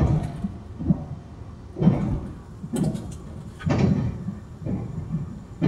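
Puyuma TEMU2000 electric tilting train running, heard inside the car: a low rolling rumble broken by heavy knocks and short clatters at roughly one-second intervals, irregularly spaced.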